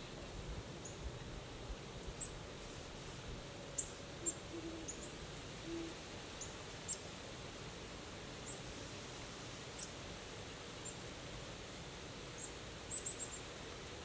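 Great horned owl hooting: a short series of deep hoots about four to six seconds in. Scattered brief high chirps come and go over a steady faint outdoor hiss.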